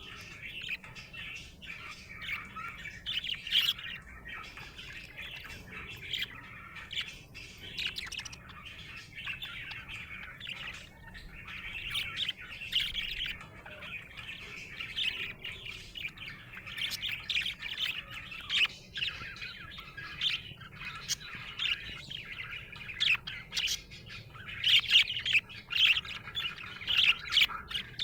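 Budgerigar (budgie) chattering: continuous chirps, warbles and squawks, with louder chirps coming more often in the last third.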